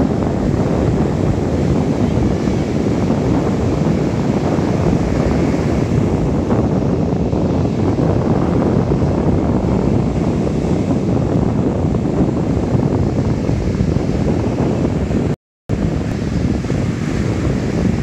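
Ocean surf breaking and washing up a sandy beach, mixed with heavy wind buffeting the microphone. The sound cuts out completely for a moment about fifteen seconds in.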